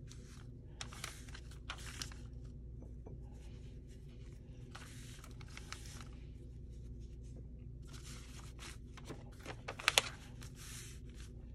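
Paper being handled and torn in several short, rasping bursts, with a few sharp clicks near the end.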